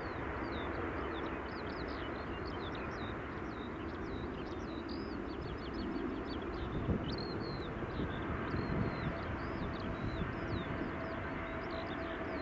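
Steady rumble of an Airbus A320neo's Pratt & Whitney geared turbofan engines at taxi power, with small birds chirping and trilling over it throughout. A faint steady whine comes in during the second half.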